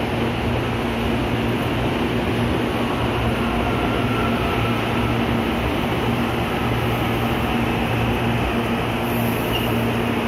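CPTM Série 8000 electric multiple unit pulling into the station, running past close by: a steady rumble of wheels on rail with a low, even hum.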